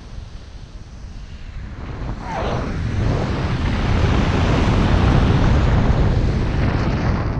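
Wind rushing over a helmet-mounted camera's microphone as a BASE jumper flies his parachute canopy in to land, building about two seconds in to a steady loud rush and easing off near the end. The canopy is coming in fast with a tailwind, more speed on the tail than the jumper expected.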